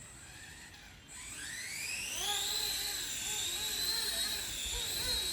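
Electric brushless motor and rotor of a small 3D-printed RC helicopter spooling up: about a second in, a whine rises in pitch, then holds high and steady with a slight wavering as the rotor comes up to speed.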